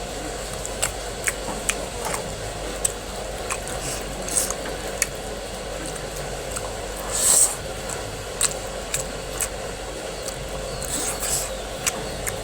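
Eating sounds: chewing and wet lip smacks as short clicks every half second or so, over a steady background hum, with one louder rustling scrape about seven seconds in.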